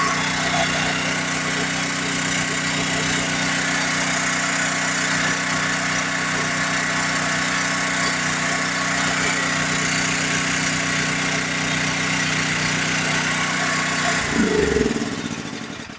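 DuroMax XP13000HX portable generator engine running steadily on propane, with no backfiring. Near the end it is shut off and winds down, its pitch falling as the sound fades.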